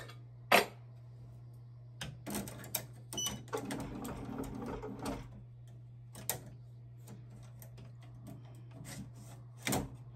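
An embroidery hoop being fitted onto the metal hoop arms of a Ricoma EM-1010 embroidery machine: a sharp click about half a second in, a couple of seconds of clicking, scraping and sliding, then a few scattered clicks, the last near the end, over a steady low hum.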